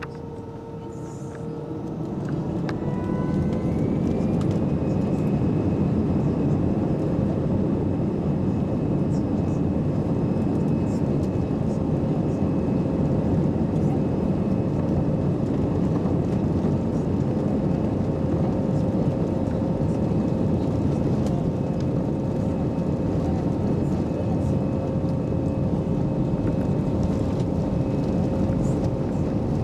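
Airliner jet engines spooling up to takeoff power, heard inside the cabin: a whine rises and the sound swells over the first few seconds, then holds steady and loud at full thrust.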